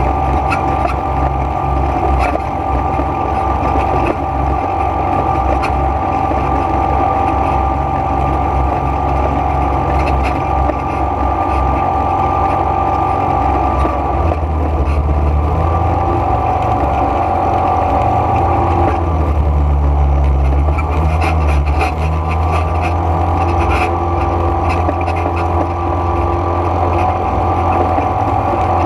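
ATV engine running steadily while riding on a dirt road, with heavy low rumble from the ride; the engine note shifts a couple of times around the middle as the throttle changes.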